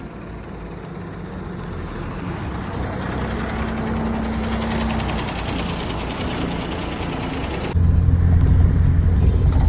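A motor vehicle running, a steady rumble of engine and road noise that grows gradually louder, then changes abruptly near the end to a heavier, deeper rumble.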